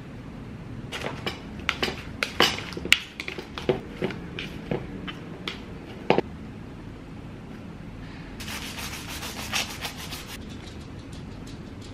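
Salad being tossed with tongs in a wooden bowl: irregular clicks and leafy rustles for several seconds. Near the end a knife cuts through a rolled wrap on a wooden cutting board, a steady scraping for about two seconds.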